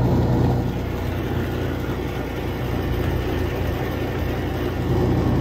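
110-volt, half-horsepower electric motor running steadily under heavy load as it spins a rewound three-phase alternator, a constant low hum.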